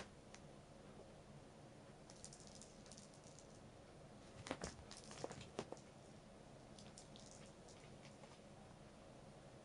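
A very quiet room with faint rustling and a few light clicks and taps, a short cluster of them about halfway through: a cat playing with a small toy ball on carpet.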